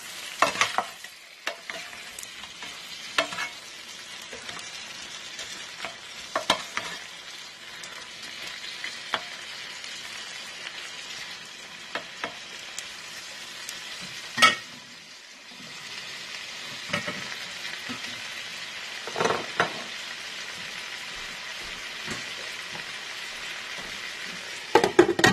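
Shrimp sizzling in butter and garlic in an electric skillet, with the scrapes and knocks of a wooden spoon and spatula stirring them. Near the end a lid clatters down onto the skillet and the sizzle turns muffled.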